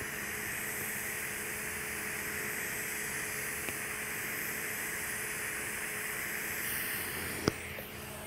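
TIG welding arc on Monel 400 (nickel-copper alloy) pipe, a steady hiss with a faint hum. The hiss changes and drops near the end as the arc is broken, and a single sharp click follows.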